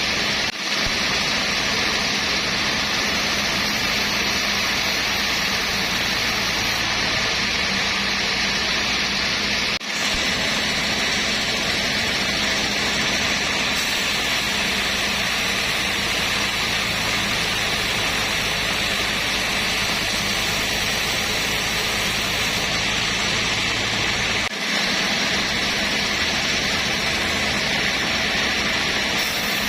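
Sawmill machinery running steadily: a continuous, hissing machine noise with a low hum, interrupted by brief dips a few times.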